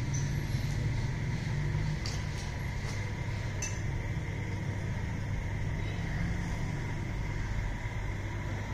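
A tractor's diesel engine idling steadily, with a few light metallic clinks about two to four seconds in.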